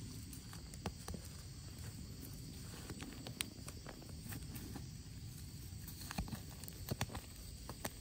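Fingers digging and plucking young termite mushrooms out of dry soil, with scattered sharp crackles and clicks of dry leaves and twigs, over a low steady rumble.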